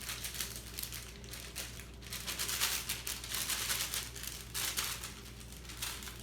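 Plastic or paper packaging crinkling and rustling in irregular bursts as it is handled, likely the cake-mix packet being emptied into the bowl.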